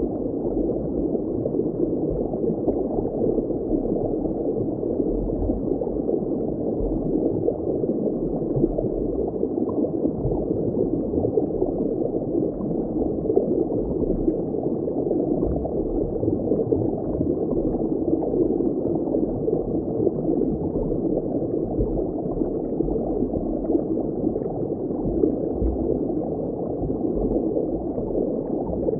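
Steady, muffled underwater ambience of bubbling, gurgling water.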